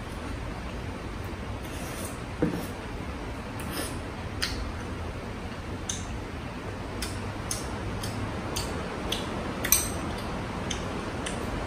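Chopsticks and a ladle clinking against a small bowl and a hotpot: scattered light clicks, with a duller knock about two and a half seconds in and a sharper click near the end, over a steady hiss and low hum.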